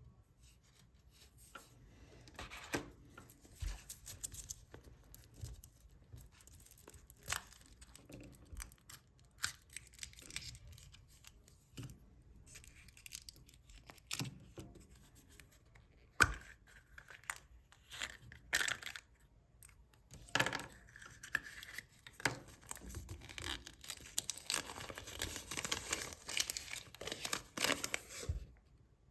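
Chocolate-egg foil wrappers being torn open and crinkled, with scattered sharp clicks and snaps, denser crinkling in the last few seconds.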